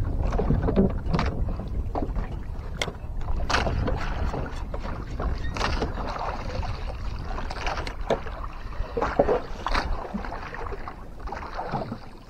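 Water sloshing and slapping irregularly against the hull of a small wooden outrigger boat, over a steady low rumble.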